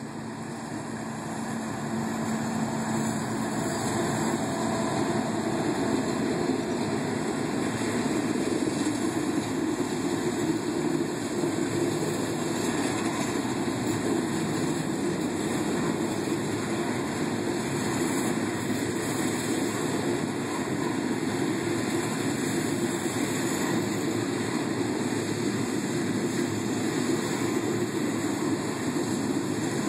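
Coal hopper cars of a CSX freight train rolling past close by, a steady rumble that builds over the first couple of seconds and then holds level.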